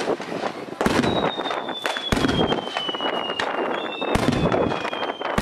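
Aerial firework shells bursting in quick succession, a dense run of bangs. A thin high whistle slides slowly down in pitch through most of it, and a second one joins near the end.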